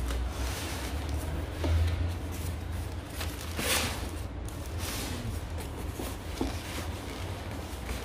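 Cardboard packaging being handled: box flaps and inner cardboard packing rubbing and scraping as they are pulled, with louder scrapes about two and four seconds in.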